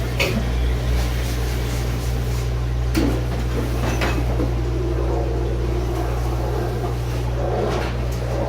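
Steady low mechanical hum of kitchen machinery, with a few sharp knocks, one just after the start and others about three and four seconds in.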